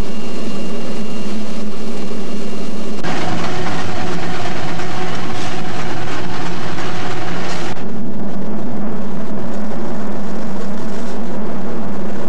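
Narrow-gauge steam locomotive standing under steam, with a steady low hum. A loud hiss of escaping steam starts suddenly about three seconds in and stops abruptly a little before eight seconds.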